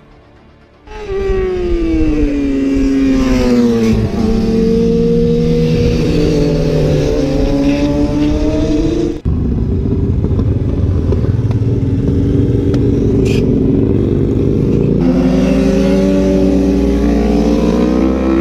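Sport motorcycle engines passing at speed. The engine note falls as a bike goes by, then holds at high revs and slowly climbs. It breaks off suddenly about nine seconds in and picks up again with more engine sound.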